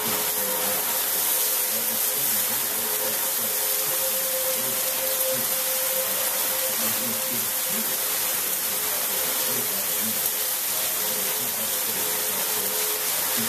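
Heavy rain pouring down in a steady hiss, with a faint steady hum beneath it.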